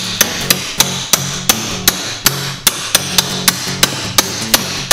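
Background music with a sharp, metallic, hammer-like striking beat, about three evenly spaced hits a second, over a steady low tone.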